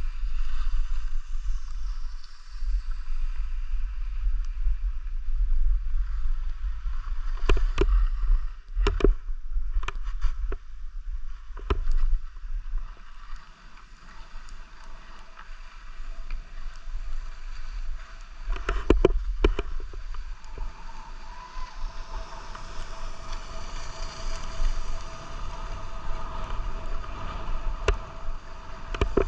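Skis sliding and scraping over groomed snow on a downhill run, with wind rumbling on the camera's microphone. A few sharp knocks stand out, twice in quick pairs.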